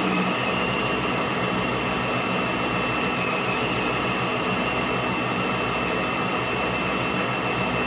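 Metal lathe running steadily with a boring bar in the spinning workpiece: motor and gear noise with a steady high whine over it.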